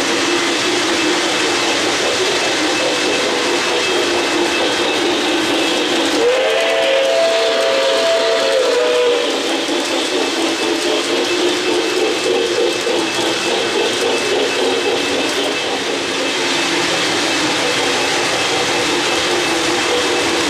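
O-gauge model trains running on the track, a steady rumble and hiss of wheels and locomotive sound effects, with a chord-like steam whistle blowing for about three seconds starting some six seconds in.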